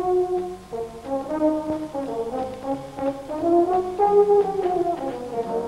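Background music: brass instruments playing a melody of held notes that step and glide from one pitch to the next.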